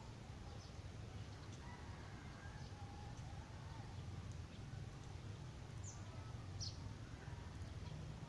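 Faint outdoor ambience: a steady low rumble with a few short, high bird chirps, two of them close together about six seconds in.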